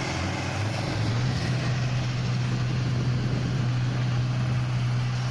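John Deere rice combine harvester's Hino diesel engine running, its pitch stepping up slightly about a second in and then holding steady.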